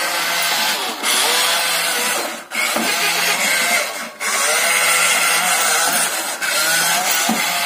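Small electric motor of a remote-control toy vehicle whirring steadily, cutting out briefly twice.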